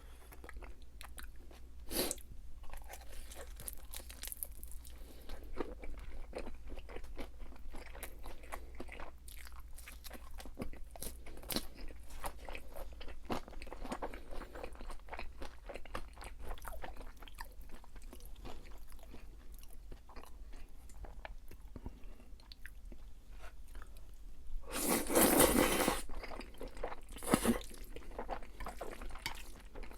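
Close-miked eating: steady chewing with many small crisp crunches and mouth clicks. Near the end comes a louder noisy burst lasting about a second, followed by a sharp click.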